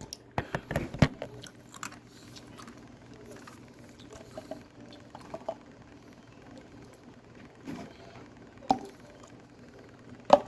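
Scattered small clicks, taps and knocks of a cup and mini tumbler being handled while drinking iced coffee, thickest in the first second, with two sharper knocks near the end, over a steady low hum.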